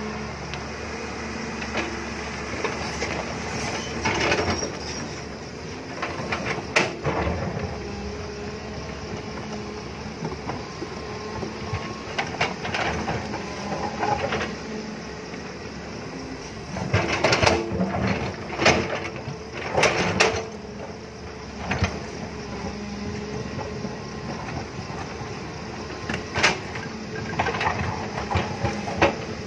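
JCB crawler excavator's diesel engine running steadily while its bucket digs into soil and rock, with repeated knocks, clanks and scrapes of stone against steel that are loudest in a cluster a little past halfway.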